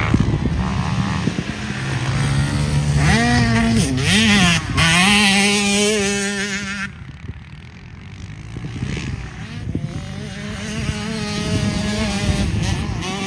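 A 50cc KTM two-stroke dirt bike engine revving up and down as it is ridden over the jumps, its pitch climbing and falling several times. It drops away suddenly about seven seconds in, then builds again more faintly toward the end.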